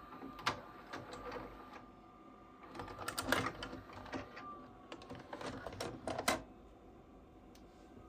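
Irregular mechanical clicking and rattling in several short runs, loudest about three seconds in and again just after six seconds, over a faint steady tone.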